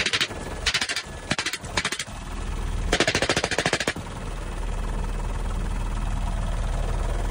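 Door-mounted machine gun firing from an open helicopter door in short bursts: four quick bursts in the first two seconds, then a longer burst of about a second around three seconds in. The helicopter's steady low drone runs underneath and carries on alone after the last burst.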